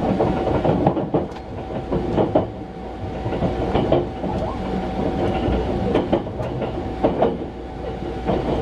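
Running noise heard inside a 285-series sleeper train's compartment: a steady low rumble with a steady hum, and the wheels clacking unevenly over the track.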